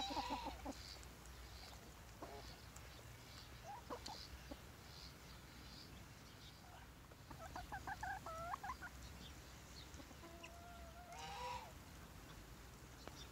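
Chickens clucking in scattered calls: a short call at the start, a quick run of clucks a little past the middle, and a longer drawn-out call toward the end.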